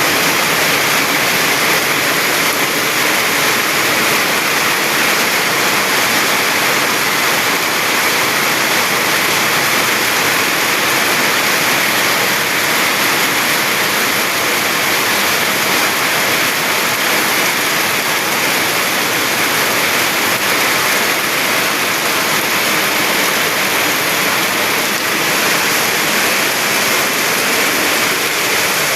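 Heavy rain pouring down in a steady downpour, a loud, even hiss of rushing water that does not let up.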